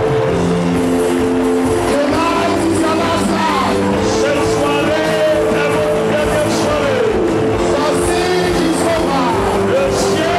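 A congregation singing and calling out in worship, many voices together over held, steady instrumental chords.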